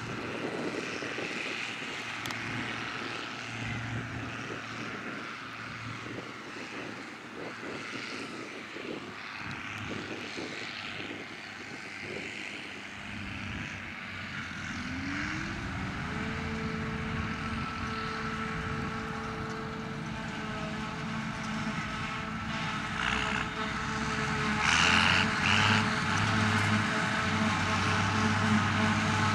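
Farm tractor engines running in a field: the Ford 3000 tractor's engine as it drives off, with a forage harvester and silage tractor working and growing louder near the end. About halfway, a steady whine rises in pitch and then holds.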